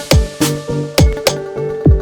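Background music: an electronic beat with deep bass drums that drop in pitch, struck several times, plus sharp percussion hits over held synth notes.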